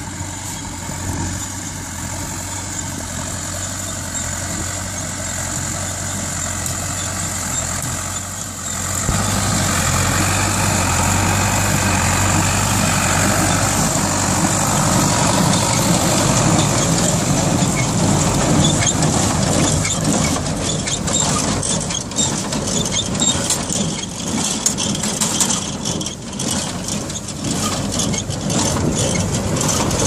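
Zetor 6211 tractor's diesel engine running steadily under load while driving a Bamford Super 58 small square baler, growing louder about nine seconds in. In the second half the baler's mechanism clatters with rapid knocks and clicks as it packs hay.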